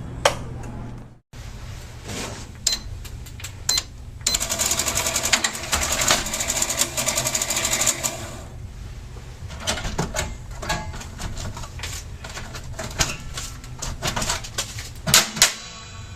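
Electronic cash register: two short beeps, then its receipt printer running in a fast, even rattle for about four seconds, followed by scattered clicks and clunks.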